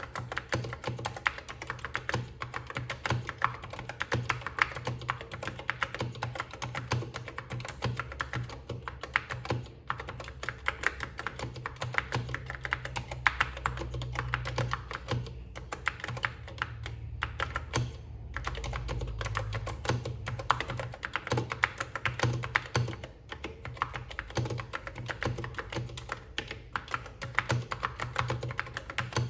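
Typing on a Key Tronic keyboard with foam-and-foil key switches: rapid, continuous keystrokes with a couple of brief pauses about ten and eighteen seconds in.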